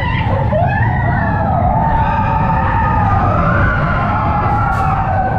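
Arrow mine-train roller coaster rumbling along its track, with riders' long, wavering screams rising and falling over the rumble.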